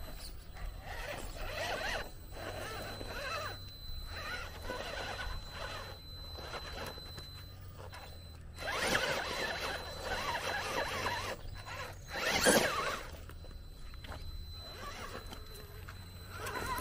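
A 1/10-scale RC rock crawler's electric motor and geared drivetrain whining in stop-start bursts as it is throttled up over rocks. There is a louder, sharper burst about three-quarters of the way through.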